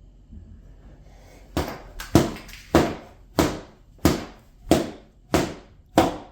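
A series of about eight heavy blows in a steady rhythm, roughly one every two-thirds of a second, starting about a second and a half in, each with a short ringing decay.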